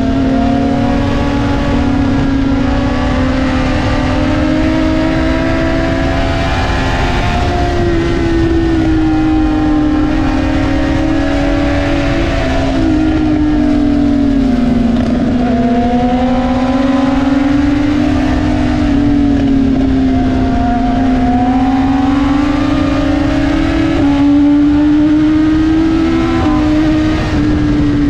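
BMW S1000RR's inline-four engine running under way, heard from on board, its note rising and falling with the throttle and jumping in pitch a few times as gears change, over steady wind rush.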